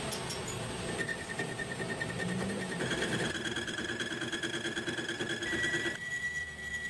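Metal lathe turning a steel bearing-ring blank: the cutting tool and spindle make a steady, high pitched whine. The pitch shifts abruptly several times as the shots change.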